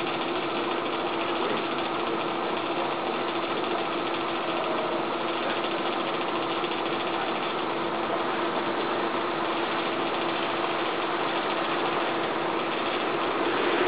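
A small electric blower running steadily, a constant motor hum over rushing air: the forced draught feeding a charcoal-fired mini kiln.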